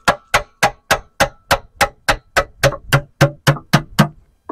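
A rapid, even series of sharp taps on metal, about four a second, some sixteen in a row, stopping near the end.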